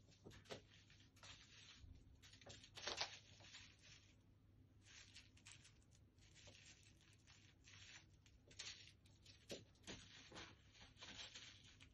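Near silence with faint scattered scratching and rustling, a louder scratch about three seconds in, over a low steady hum.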